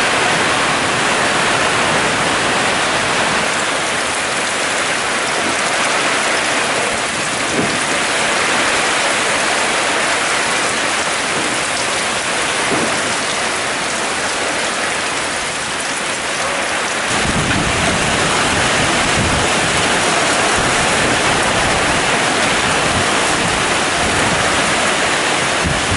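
Heavy thunderstorm rain driven by strong wind, a steady dense rushing noise. About two-thirds of the way through, low wind buffeting on the microphone joins it.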